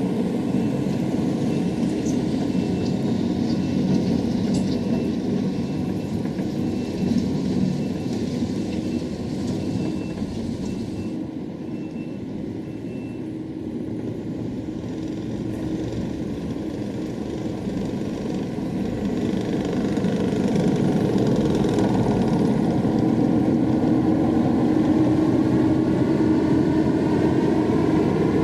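Engine of a heavy machine working gravel with its bucket, running steadily, easing off about halfway through and building up again later. A faint high beep repeats at regular intervals during the first half.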